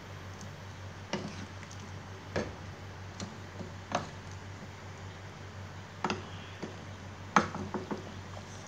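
Wooden spatula knocking and scraping against a metal pot while stirring a thick curry: irregular clicks about once a second, the loudest about seven seconds in, followed by a few quick ones. A steady low hum runs underneath.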